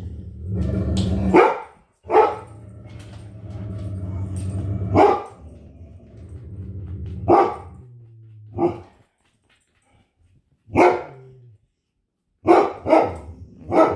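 A Great Dane and a poodle barking at something outside the window: about nine sharp single barks at irregular intervals, with long, low drawn-out howls running through the first five seconds or so.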